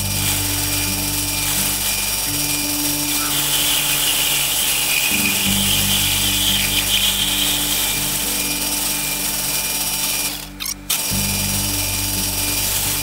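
Background music over the steady whir of a South Bend metal lathe running, with a brighter hiss from about three to eight seconds in. Both cut out briefly about ten and a half seconds in.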